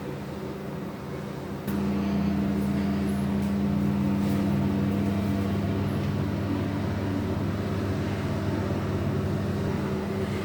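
Steady low mechanical hum that jumps louder with a click about two seconds in, then holds steady; a sharp click near the end.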